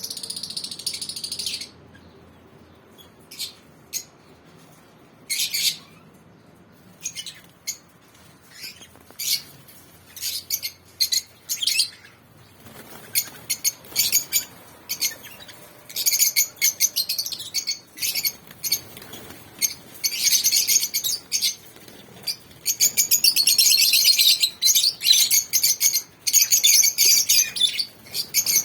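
Lovebirds chirping: scattered high calls at first, building to dense, rapid chattering from about halfway through.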